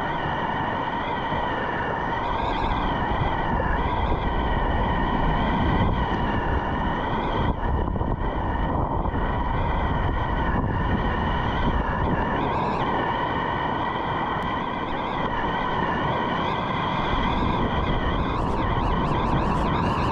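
Whitewater rushing and churning around a sit-on-top kayak as it is paddled through rapids, a steady loud wash. A faint wavering whine runs over the water noise throughout.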